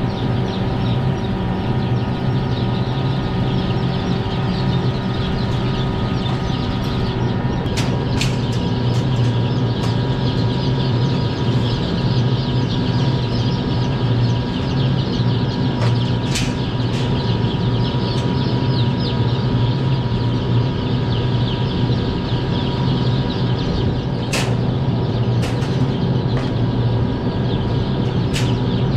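Dense, continuous peeping of a large flock of young chicks in wire cage batteries, over a steady machine hum. A few sharp clicks and knocks stand out, about a third of the way in, around the middle and several near the end, as starter paper is pulled from the cages.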